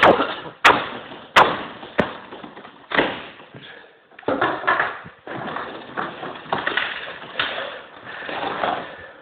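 A door being kicked: about five hard thuds in the first three seconds, each a little under a second apart. They are followed by a busier run of lighter knocks and noise.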